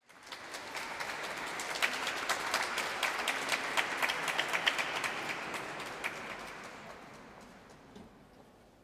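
Audience applause, a dense patter of clapping that rings in a large church's reverberation and dies away over the last few seconds.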